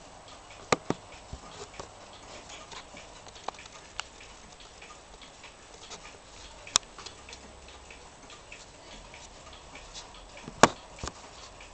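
Atomic DGU 100 flip clock radio's mechanism ticking faintly and unevenly, with three sharper clicks about a second in, halfway through and near the end.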